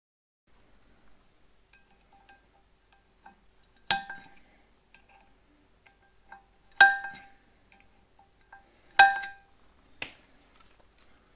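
Metal clinking: three sharp metallic clinks a few seconds apart and a fainter fourth, each ringing briefly at the same pitch, with lighter taps in between, as metal parts and tools are handled at the tractor's exposed steel flywheel and bellhousing.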